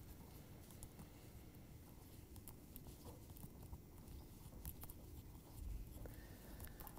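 Faint, scattered light clicks of double-pointed knitting needles working the stitches of a sock, over near-silent room tone.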